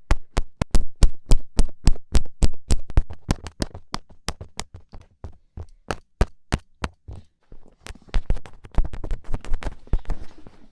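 Fingertip taps and pokes close to the recording device's microphone: a rapid run of sharp taps, about four a second, thinning out midway and picking up again, softer and busier, near the end.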